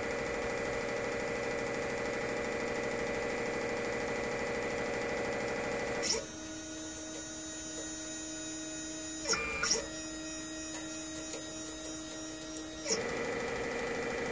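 3D printer's stepper motors humming steadily with several pitched tones. About six seconds in, the hum drops to a quieter, different set of tones as the pin comb is raised out of the wells, with a couple of clicks around nine to ten seconds. Near the end the first hum returns as the comb goes back down.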